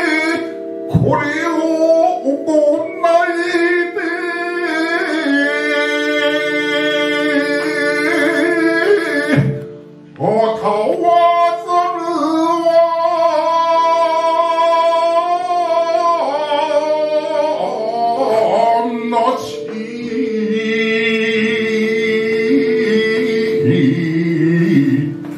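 Male shigin chanting: a man sings a poem in long, wavering held notes, breaking for breath about ten seconds in, over steady held accompaniment tones that shift chord a few times.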